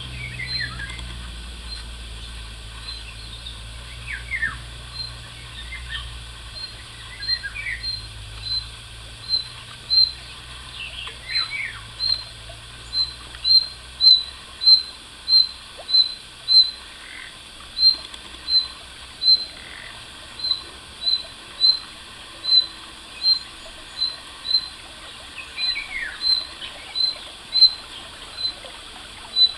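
Birds calling in woodland. One bird repeats a short, high note about twice a second, louder from about a third of the way in, and now and then a falling whistle comes from another bird.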